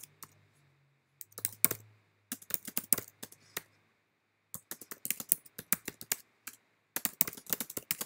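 Typing on a computer keyboard: quick runs of key clicks in three bursts with short pauses between them, as a line of text is typed.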